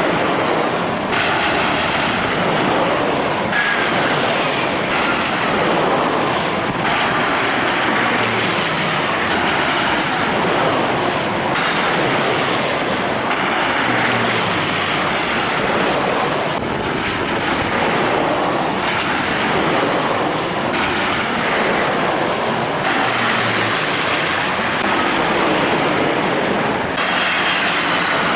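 Jet airliner engines running: a loud, steady rush with high whines that slide down in pitch again and again.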